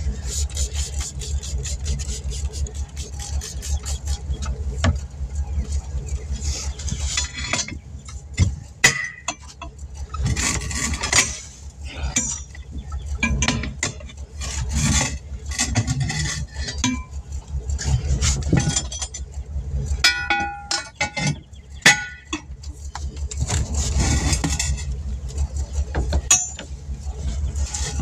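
Metal tools clinking, knocking and squeaking during tire work on a pickup truck, over a steady low running engine-like hum. Sharp knocks stand out about 9 and 22 seconds in.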